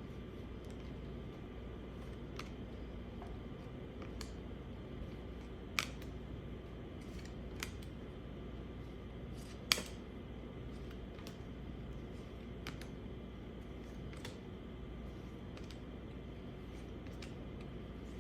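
Scattered light clicks and handling noises of baseball card packs being opened, over a steady low hum. Two sharper clicks stand out, about six and ten seconds in.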